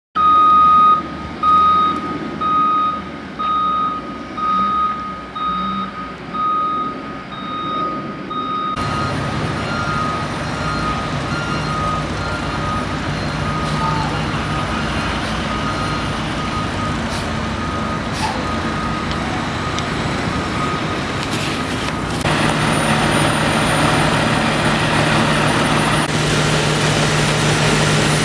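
A heavy truck's reversing beeper sounds about once a second, then stops after about nine seconds, leaving the truck's engine running steadily. The engine gets louder a little after twenty seconds in.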